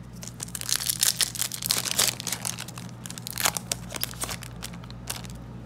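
Foil Yu-Gi-Oh! booster pack wrapper crinkling and tearing as it is ripped open by hand, a dense run of sharp crackles loudest over the first two seconds, with a few more bursts later on.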